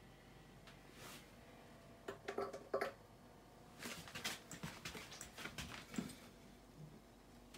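Quiet scattered taps and knocks of kitchen handling as cut dates go into a plastic blender jar, in two clusters about two and four seconds in.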